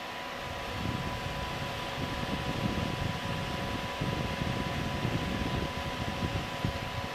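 Cooling fans of a multi-GPU cryptocurrency mining rig running steadily, a broad whoosh with a faint steady whine. From about a second in, a low, uneven rumble of air from the graphics-card fans buffets the microphone.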